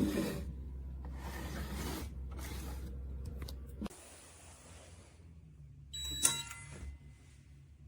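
Handling noises from a biometric pistol safe: shifting and rustling over a low hum that stops about four seconds in, then a sharp clank with brief ringing about six seconds in.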